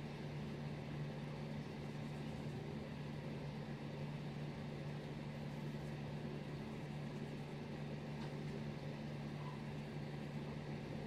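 A steady low hum over a soft even hiss, unchanging throughout, with no distinct events.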